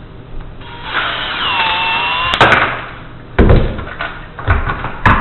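A cordless power screwdriver runs for about a second and a half, its whine rising and then holding steady as it backs out a screw. It stops with a sharp click, followed by several loud knocks and thuds of parts being handled.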